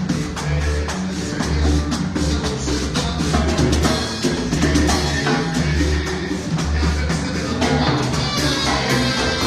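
A live band playing at a sound check: a drum kit keeping a steady beat over a bass line.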